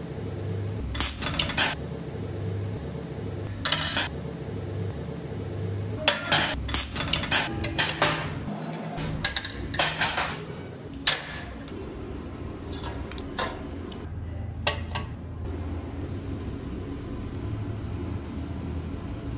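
Metal welding tools being handled: an electrode holder, a welding rod and a ground clamp click and clank against each other and the steel plate in short clusters, which stop about three-quarters of the way through, over a low steady hum.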